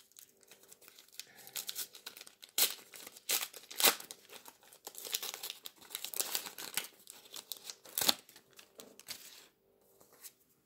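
The wrapper of a trading-card pack being torn open and crinkled by hand: irregular crackling and ripping with a few sharp, louder rips along the way. It thins out to faint rustles near the end.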